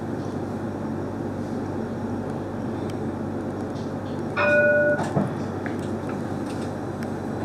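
CAF Urbos 3 tram running slowly with a steady rumble, heard in the driver's cab. About four and a half seconds in, a single short tone sounds for about half a second and cuts off sharply, followed by a brief knock.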